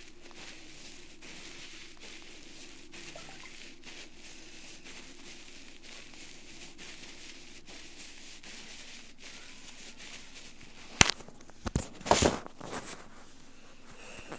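Ear-cleaning tool scraping inside an ear canal, close-miked: faint scratching over a steady hiss. About eleven seconds in comes one sharp loud crack, followed a second later by a short burst of loud crackles.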